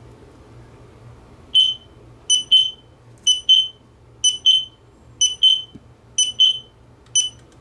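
XSENSE wireless interlinked photoelectric smoke alarms beeping in test mode: sharp high-pitched beeps, mostly in close pairs about once a second, starting about a second and a half in. The test button on one unit has set off the linked alarms as well.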